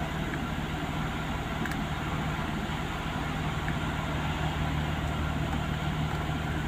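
Car engine idling steadily, heard from inside the cabin as an even low hum.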